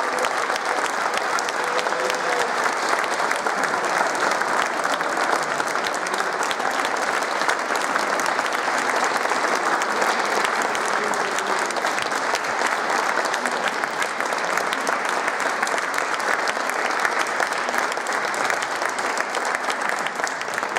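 Audience applauding, a steady dense clapping that holds at much the same level throughout.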